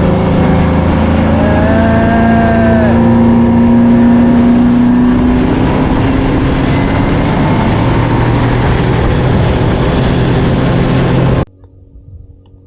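Bass boat's outboard motor running at speed under a heavy rushing noise, its pitch rising slowly over the first few seconds. It cuts off abruptly about a second before the end, leaving a faint hum.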